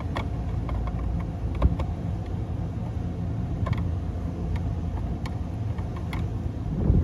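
Steady low mechanical hum and rumble of running equipment, with several light clicks and taps as the duct smoke detector's wiring connections are handled.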